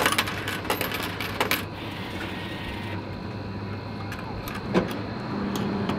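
Hot food vending machine running with a steady hum while it cooks an order. A quick flurry of clicks and clatter comes in the first second and a half, and a single knock about a second before the end. A steadier, slightly higher hum then sets in.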